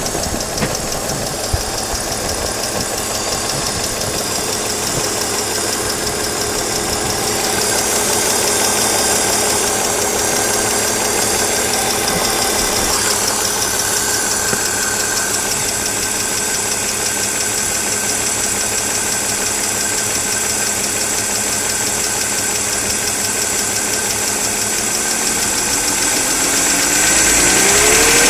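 BMW E46 320i straight-six engine running steadily with a fast clattering rattle through it, then revving up near the end.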